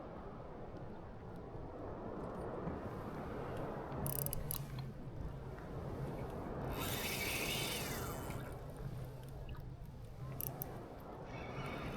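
Fishing reel's drag buzzing for about a second, some seven seconds in, as a strong hooked fish pulls line off, with a few clicks a few seconds earlier. Water and wind noise underneath throughout.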